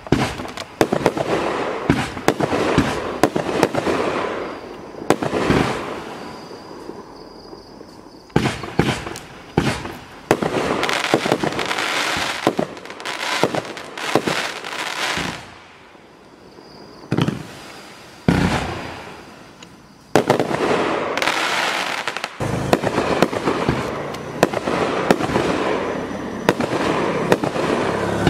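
A 26-shot consumer firework cake (Boomwow BW1503) firing a rapid string of shots, each launch and aerial burst a sharp report. The shots come in several fast volleys with short lulls between them.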